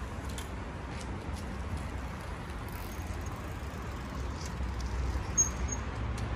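Outdoor background noise: a steady low rumble with a few faint, scattered ticks and one short, high chirp about five seconds in.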